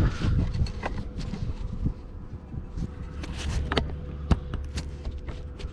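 Handling noise as the camera is moved and repositioned: scattered clicks and knocks over a low rumble, with the sharpest click about four seconds in. A faint steady hum sits underneath.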